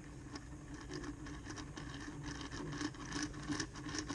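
An Allen key turning in a Master Lock ground anchor to separate its steel plates: an irregular run of light metallic ticks and scraping.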